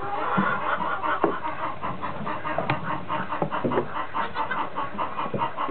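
Chickens clucking: a steady run of short clucks, several a second.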